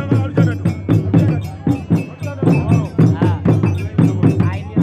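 Khassonké traditional music: sharp percussion strokes about four a second, with voices singing over them.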